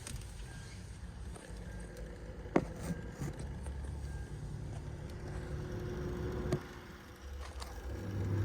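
Knocks and clicks from the cargo area of a Lexus GX460, heard over the low steady rumble of the moving vehicle: a sharp knock about two and a half seconds in, a couple of smaller clicks just after, and another knock near the end. This is the unexplained rattle in the trunk.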